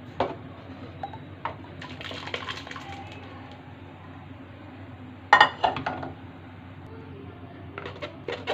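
Metal kitchenware clinking and knocking as cooked tamarind pulp is strained through a metal mesh sieve into a bowl, with a loud burst of clinks about five seconds in and more knocks near the end.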